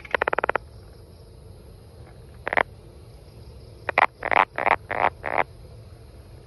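Brown banana frog calling: a quick rattling trill of clicks at the start, a single short note about two and a half seconds in, then a run of about five short notes about four seconds in.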